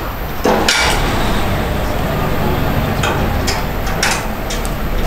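Heritage train moving along the track: a steady running rumble, with a louder clank about half a second in and several sharp metallic knocks and clinks in the last two seconds.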